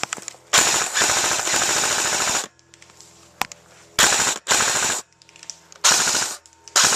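Airsoft electric guns firing on full auto: one long burst of about two seconds, then four short bursts in the last three seconds.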